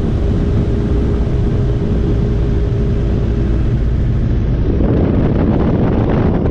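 Wind buffeting the microphone of a camera mounted outside a Robinson R22 helicopter, over the steady low rumble of its rotor and engine as it descends. The higher hiss thins out for the first four seconds and comes back strongly about five seconds in.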